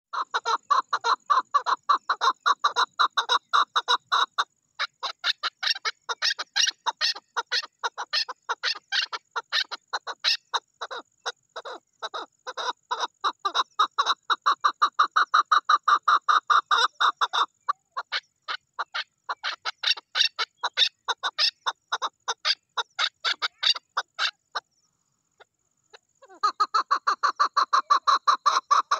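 Chukar partridge calling: a long, rapid series of short repeated 'chuk' notes, several a second, with brief breaks about four and eighteen seconds in and a longer pause a few seconds before the end, after which the calling resumes.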